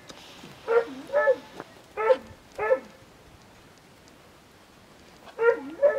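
A dog barking: six short barks in three pairs, with pauses between the pairs.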